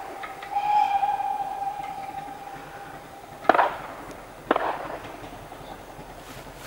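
Steam locomotive whistle blowing one steady, held note that cuts off about three and a half seconds in, followed by two sharp, loud bangs about a second apart and the faint running of the approaching train.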